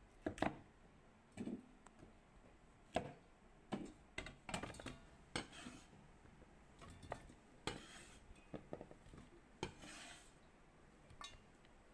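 A cleaver chops peeled yellow cassava into chunks on a wooden cutting board, and the chunks clunk into a stainless steel bowl. The sound is a string of faint, irregular knocks and clinks.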